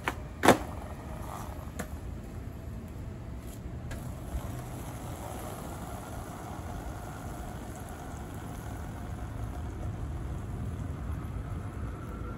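A skateboard slaps down hard on pavement once, about half a second in, with a few much fainter knocks afterwards, over a steady low hum of distant traffic.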